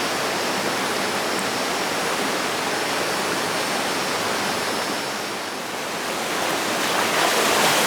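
Running water rushing steadily, like a stream or small waterfall, dipping briefly a little after the middle and swelling near the end.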